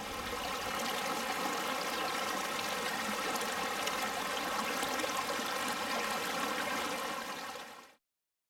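Steady rush of running water, fading out near the end.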